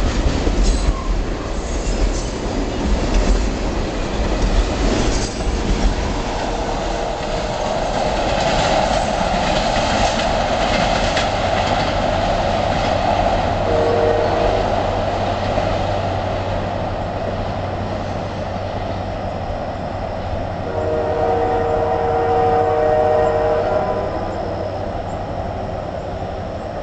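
Freight train of tank cars rolling by, wheels clacking over the rail joints for the first few seconds, then a steady rumble that slowly fades as the train moves away. A distant train horn sounds briefly about halfway through and again for a few seconds near the end.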